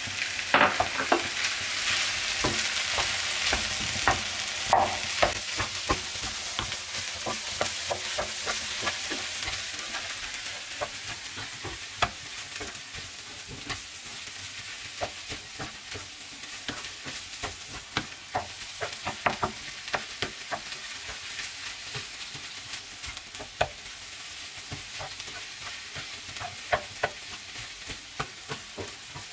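Potato filling with green onion and coriander sizzling as it fries in a pan. A wooden spatula scrapes and taps against the pan as it is stirred. The sizzle is strongest in the first several seconds and then dies down.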